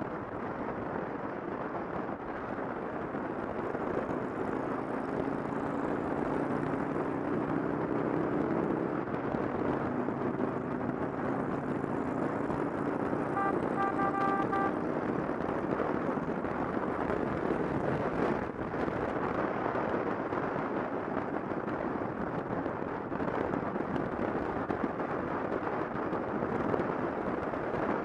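Steady wind rush and road noise at motorway speed from a camera riding on a motorcycle, with a motorcycle engine note rising through it from about four to ten seconds in. About halfway there is a short run of high beeps, and a single sharp knock a few seconds later.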